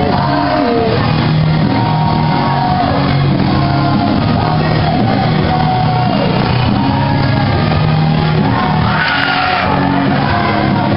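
Rock music with singing plays through a gymnasium's loudspeakers, echoing in the hall, with shouts from the crowd.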